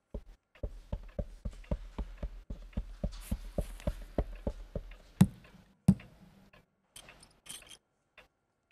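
Cartoon sound effects from a stop-motion animation: a run of light, quick knocks at about three to four a second, then two heavier knocks about five and six seconds in, each with a short low hum, and a brief hiss near the end.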